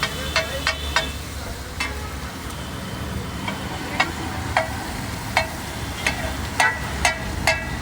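Metal spatula striking and scraping a large iron tawa as food is stirred and fried on it. The sharp clanks ring briefly, come at an irregular pace and grow more frequent near the end, over a steady low hum.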